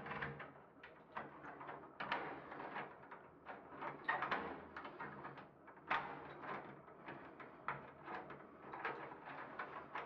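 A key turning in a euro cylinder door lock, with the lock and latch giving a series of sharp clicks. Birds call outside through the open door.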